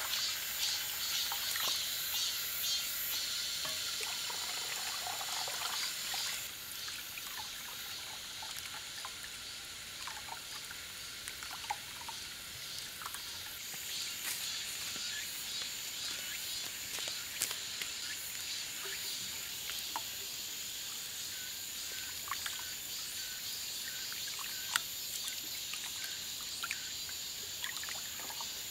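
Water running from a garden hose into a water-filled earthenware basin, with small splashes as hands rinse perilla leaves in it. The running water gets quieter about six seconds in.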